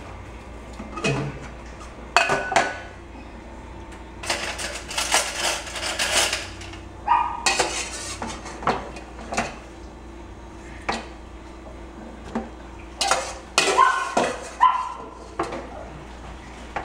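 Metal spoon clinking and scraping against a stainless steel cooking pot as the boiled contents are scooped out: irregular clinks and knocks, with a denser run of clatter about four to six seconds in.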